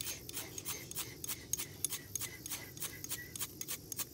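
Fire steel (ferrocerium rod) being scraped hard and fast with a striker, about six quick scrapes a second, throwing sparks onto feather-stick shavings to light a campfire.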